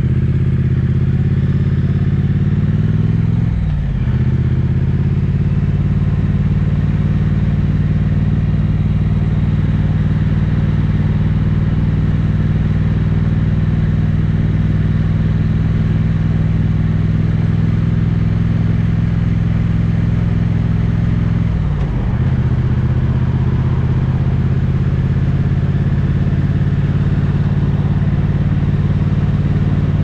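Triumph parallel-twin motorcycle engine and exhaust pulling steadily while riding, heard from the saddle. The revs dip quickly and pick up again twice, a few seconds in and about two-thirds through, as the rider changes gear.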